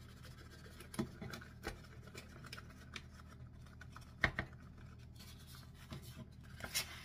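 Faint rustling, scratching and light taps as powder is shaken from a resealable pouch into a small plastic measuring scoop, with a sharper click a little after four seconds.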